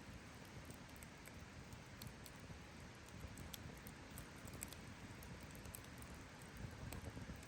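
Wood campfire burning faintly, with scattered irregular crackles and pops over a low steady hiss.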